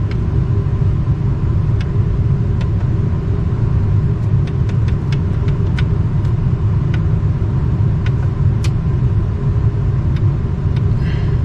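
Steady low rumble with a scattering of light clicks.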